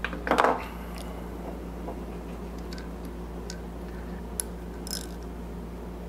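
Small metal carburetor parts clicking and rattling as they are handled and fitted: a short burst of rattling about half a second in, then a few faint ticks, over a low steady hum.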